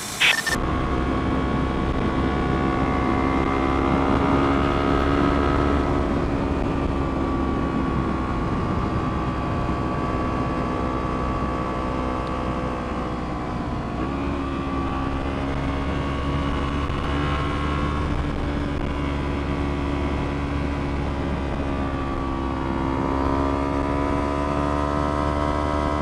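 Kawasaki Ninja 300 parallel-twin engine with aftermarket exhaust pulling at steady revs while riding, its pitch slowly rising and easing off, with a quick dip about halfway through. Wind rush runs underneath.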